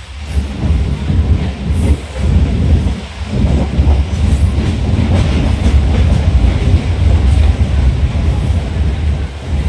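Express train's passenger coaches running past close by: a loud, steady rumble of steel wheels on the rails, with brief dips and faint clacks every second or two as the wheels cross rail joints.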